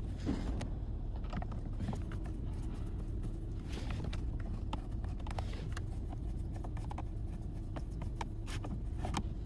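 Scattered light clicks and taps of a hand screwdriver and plastic trim parts being worked during reassembly, over a steady low rumble.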